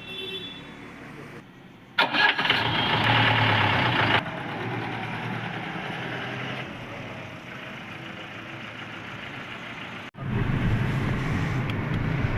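Jeep's diesel engine starting: a loud burst about two seconds in as it catches, then running steadily. After a sudden break near the end it runs louder, with a deeper note.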